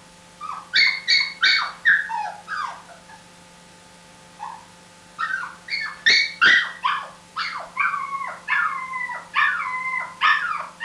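A dog whining and whimpering in a string of short, high-pitched cries, each falling in pitch. There is a pause of about a second, then a longer run in which the cries grow drawn-out and wavering toward the end.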